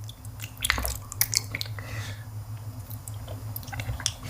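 Close-miked biting and chewing of a giant water jelly: wet squishing with sharp crackly clicks, busiest about half a second to a second and a half in.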